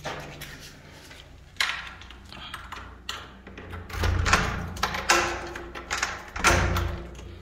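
A wooden door being handled: a sharp click about a second and a half in, then scraping and dull thuds.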